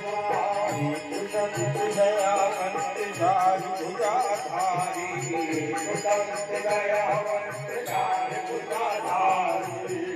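Devotional music: a singing voice with a wavering melody over a steady drum beat and jingling bells.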